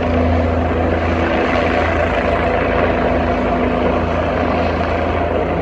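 Helicopter flying a heavy lift, its rotor and engine noise running steadily and loudly.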